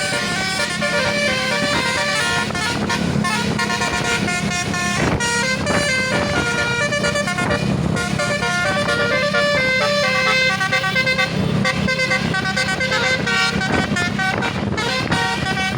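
Bus 'telolet basuri' musical air horn playing a continuous run of melody, its several horn tones stepping quickly from note to note, over a low steady hum.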